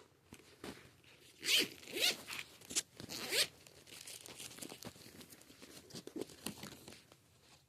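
Pokémon cards and their binder or plastic sleeves being handled. Three or four quick scraping swishes come about a second and a half in, then lighter rustling and small ticks that fade out near the end.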